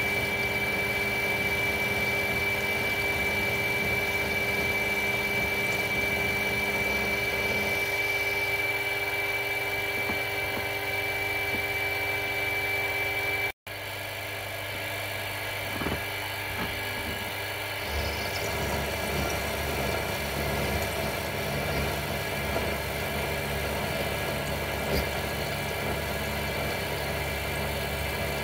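Mini milling machine running, its motor and spindle giving a steady whine while an end mill cuts a metal plate. The sound drops out for an instant about halfway through, and a rougher low rumble of cutting joins in a few seconds later.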